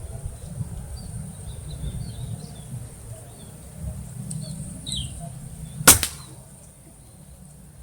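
A single air rifle shot about six seconds in, one sharp crack. Before it, small birds chirp here and there over a steady high insect drone.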